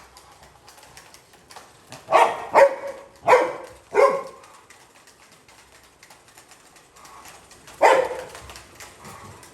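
Labrador retriever puppy barking: four short barks in quick succession about two seconds in, then one more near the end.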